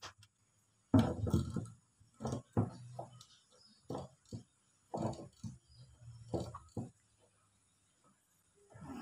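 Hard plastic knocks and clatter as a PVC tank connector and its lock nut are handled and fitted through the hole in a plastic drum: a scatter of separate knocks, the loudest about a second in.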